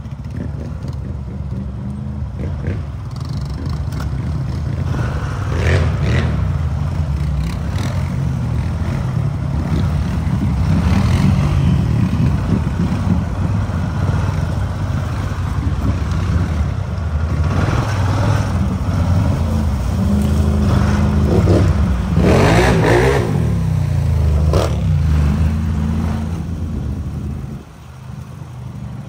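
Off-road vehicle engine running and revving, getting louder through the middle and dropping off briefly near the end, with a few short knocks or rattles over it.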